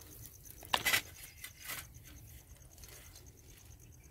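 Faint low wind rumble on the microphone, with two brief scraping rustles, the first about a second in and the second shortly after.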